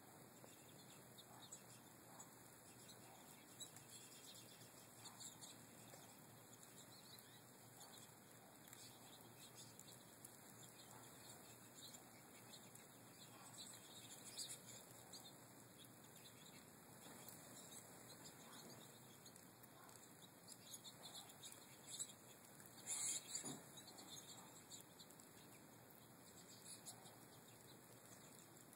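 Faint twittering of American goldfinches at a feeder: many short, high chirps scattered throughout, with a brief louder flurry about three-quarters of the way through.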